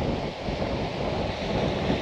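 Strong wind buffeting the microphone: a steady, gusting noise, heaviest in the low end.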